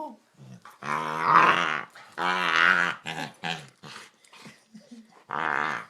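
Dog making croaking, frog-like noises when his chin is touched: three long, wavering calls of about a second each, with short grunts between them.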